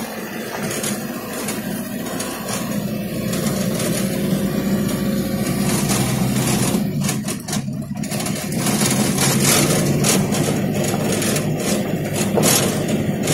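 Vehicle engine running as it drives along a gravel road, heard from inside the cab; its pitch shifts and the level dips briefly about seven to eight seconds in, then it runs louder.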